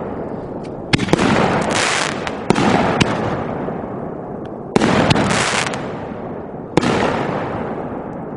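Dominator Sky Titan 1.75-inch, 60-gram canister shells going off in the sky. There are four sharp booms, about 1, 2.5, 5 and 7 seconds in, and each trails off in a long rolling echo.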